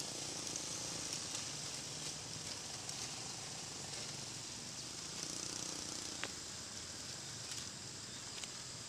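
Quiet outdoor field ambience: a steady high hiss with no distinct events, and one faint click about six seconds in.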